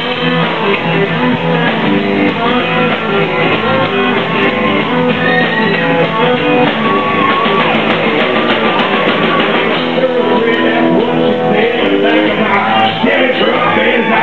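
Live country-rock band playing loud, with electric and acoustic guitars.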